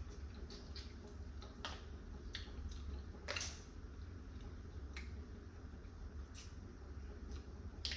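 Eating blue crab: scattered sharp clicks and smacks of chewing and picking at the shell, irregular, the loudest about three and a half seconds in, over a steady low hum.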